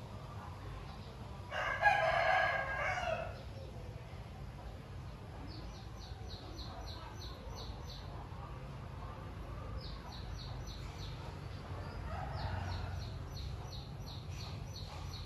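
One loud, drawn-out animal call about a second and a half in, lasting under two seconds, with a fainter call near the end. Quick runs of high chirps, several a second, come in between, over a steady low hum.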